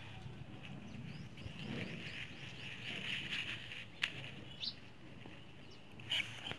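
Birds chirping and calling in the background, with a couple of sharp clicks about four and six seconds in.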